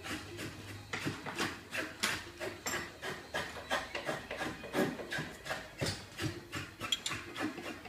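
Rapid, uneven rasping strokes of hand-tool work at a metalworking bench, about two to three a second.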